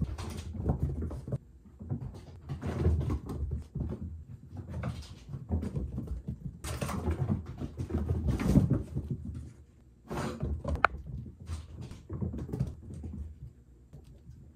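Kittens' paws thudding and skittering across a wooden floor and rug as they race around, in irregular bursts of knocks with short lulls.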